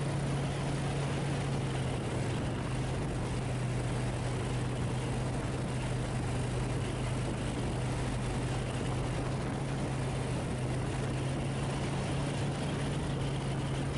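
Light bush plane's engine and propeller, a Just Aircraft SuperSTOL XL, droning steadily in cruise flight at one even pitch, with rushing airflow noise, heard from on board.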